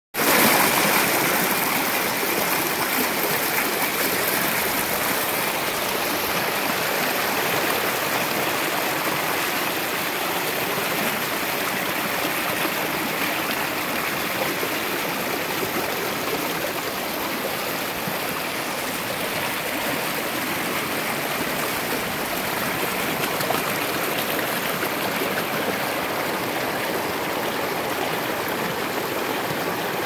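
Rocky stream rushing and splashing through a small cascade between boulders, heard close to the water as a steady, full rush.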